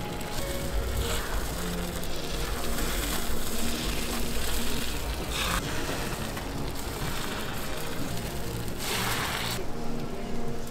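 Takoyaki batter sizzling on a hot griddle tray, with a louder surge of hissing about nine seconds in, over soft background music.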